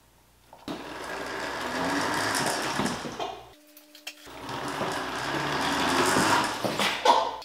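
Electric motor salvaged from a battery lawn mower, driving a mini bike's chain and rear wheel: a steady mechanical whirring that starts about a second in, breaks off briefly past the middle, then runs again.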